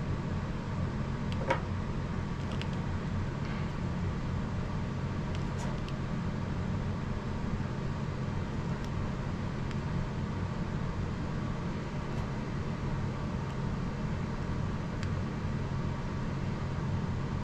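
Heat gun running steadily with a low hum, blowing hot air to shrink heat-shrink tubing over servo wires. A faint click sounds about a second and a half in.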